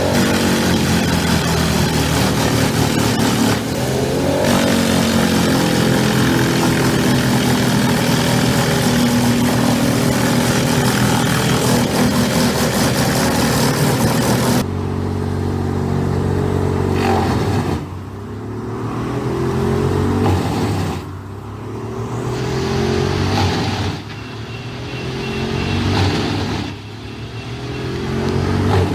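Heavy machine engine of a wood chipper or grinder running hard, with dense grinding noise over it. About halfway the sound changes abruptly, and the engine then repeatedly dips and climbs back up in pitch, roughly every three seconds.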